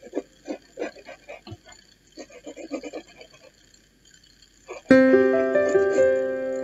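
Background music: a run of short plucked notes, a brief pause, then a loud sustained keyboard chord entering about five seconds in.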